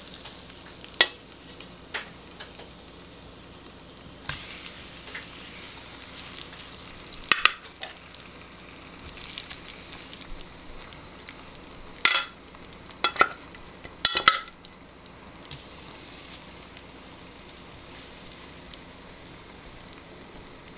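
Turmeric-and-flour-coated fish fillets sizzling in hot coconut oil in a frying pan: a steady hiss with a handful of sharp clicks as metal tongs lay the pieces in, the loudest clicks about twelve to fourteen seconds in.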